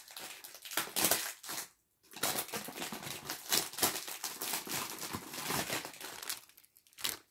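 Packaging crinkling and tearing in irregular bursts as a perfume box is unwrapped by hand, with brief pauses about two seconds in and near the end.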